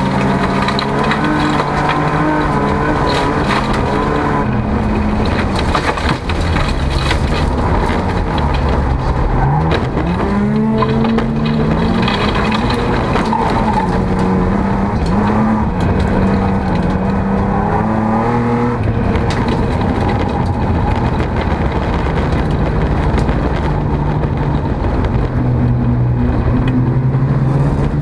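Folk-race car's engine heard from inside the cabin, revving up and dropping back again and again through gear changes and corners, with scattered rattling knocks from the car on a gravel track.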